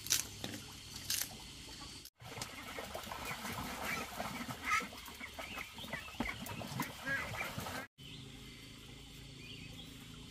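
Chickens clucking over two sharp knocks of a machete on bamboo shoots, followed by the clatter of firewood sticks being handled at a stone stove.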